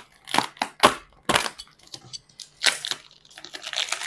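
Plastic parcel wrapping being torn and crinkled by hand, in a series of sharp crackles and rips.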